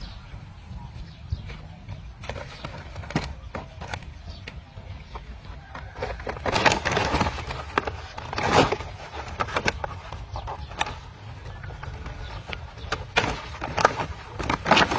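Dry palm-frond stalks knocking and scraping as they are handled, with rustling of thin vine strands being wrapped and tied around a stalk. The scraping comes in louder spells about halfway through and near the end, over a steady low rumble.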